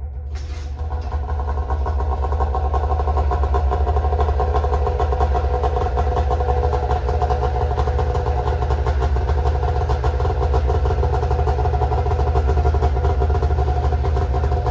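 Snowmobile engine running steadily with a fast, even firing pulse, growing louder over the first two seconds.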